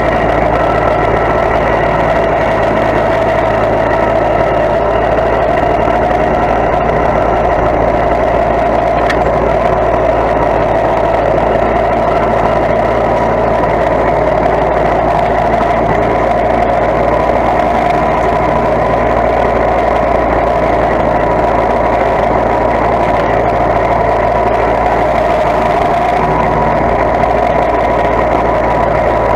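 Riding lawn tractor's engine running steadily as the tractor is driven slowly between headstones, a constant loud drone with no change in pitch.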